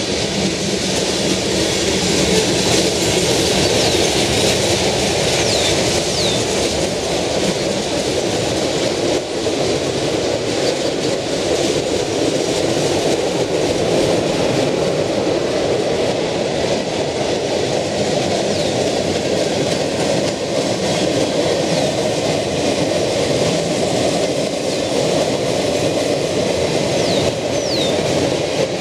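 Freight cars of a long mixed freight train rolling steadily past close by: a continuous rumble and clatter of steel wheels on the rails.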